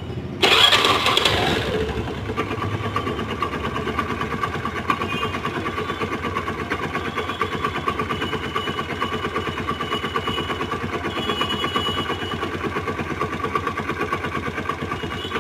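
Honda Activa scooter's single-cylinder four-stroke engine starting about half a second in, then running with a fast, even rattle. The engine ran after oil leaked out through the magneto-side oil seal, and the mechanic calls it fully seized.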